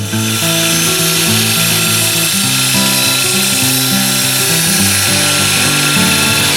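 An electric power tool's motor running steadily at speed, then winding down with a falling whine near the end, over background acoustic guitar music.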